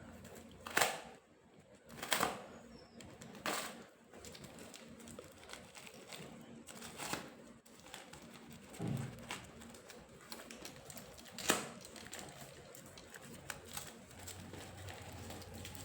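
A small parcel's packaging being opened by hand: short, sharp scrapes and rustles, spaced a second to a few seconds apart.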